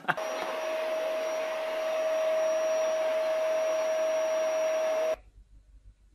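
Electric appliance motor running steadily with a constant whine, then cutting off abruptly about five seconds in.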